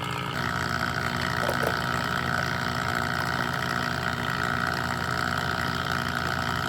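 HVAC vacuum pump running steadily while evacuating a refrigeration system; about a third of a second in, its higher tone shifts and then holds steady.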